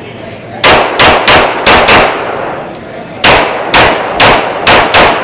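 Ten pistol shots on an indoor range, in two quick strings of five with a pause of about a second between them. Each shot is followed by a short echo.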